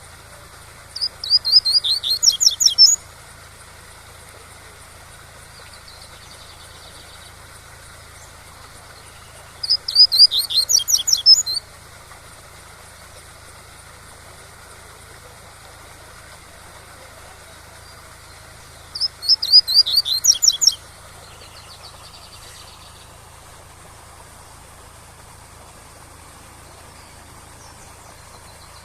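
Double-collared seedeater (coleiro) singing its 'tui-tui' song: three phrases of quick repeated high notes, each about two seconds long and roughly nine seconds apart. A steady waterfall rush runs underneath.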